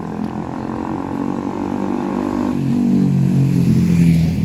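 A motorcycle engine running and growing louder as it comes near. Its pitch shifts down about halfway through.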